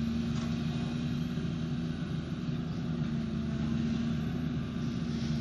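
Diesel engine of a Volvo crawler excavator running at a steady, even drone while it works its long-reach boom.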